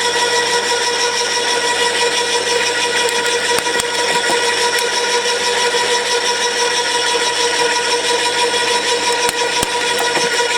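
Flymo electric garden shredder running under test with a loud, steady high whine, with a few sharp clicks around four seconds in and again near the end. It is being run after a repair to its cutter-blade tension adjuster, to check that it shreds rather than squashes.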